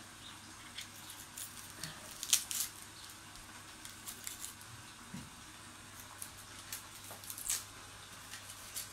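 Faint scattered crackles and rustles of an onion's dry papery skin being peeled by gloved hands, with louder crackles about two and a half seconds in and again later on.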